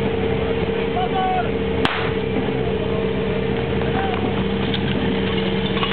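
A starting pistol fires once, about two seconds in, over the steady drone of a portable fire pump's engine running.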